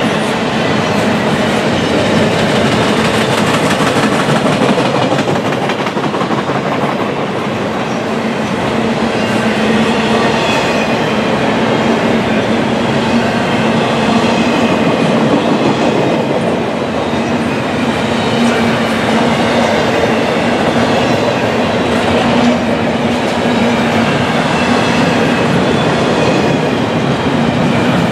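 Double-stack intermodal freight train's loaded well cars rolling past at close range: a loud, steady rush of steel wheels on rail over a low hum.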